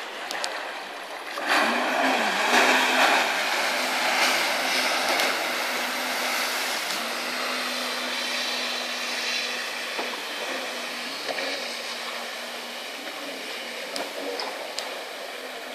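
Jet ski engine opening up about a second and a half in as it pulls away with a rush of spray. Its drone then holds steady and slowly fades as it moves off.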